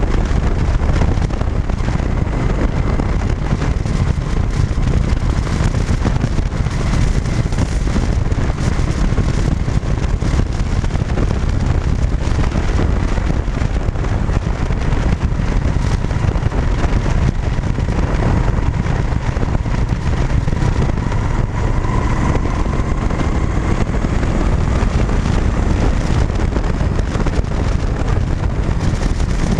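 Cruiser motorcycle riding at a steady speed: engine and tyre noise under a constant rush of wind on the microphone.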